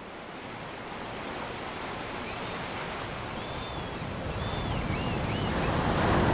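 Steady rush of waves on a sandy beach, fading in and growing gradually louder, with a few high bird chirps around the middle.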